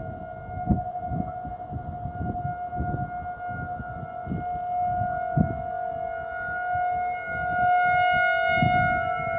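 Federal Signal 2001-130 rotating outdoor warning siren holding its steady alert tone about half a mile off, with other distant sirens on the system heard as a second, lower steady tone beneath it. The tone swells louder in the last couple of seconds.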